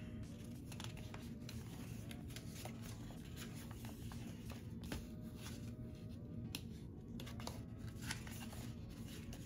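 Faint paper handling: light rustles and small taps as sticker book pages are leafed through, over a low steady room hum.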